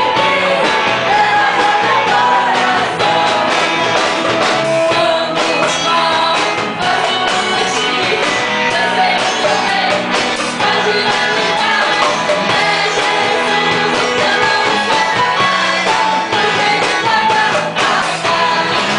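Worship band playing a rock-style praise song with voices singing.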